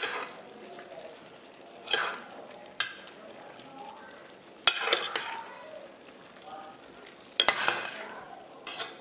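Metal spoon stirring and scraping a chunky chicken and potato curry around a metal pot, in separate strokes every second or two, over a low sizzle of the pot cooking on medium heat.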